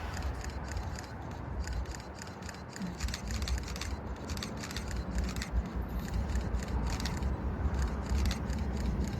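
Close handling noise: many quick clicks and rubbing sounds over a steady low rumble.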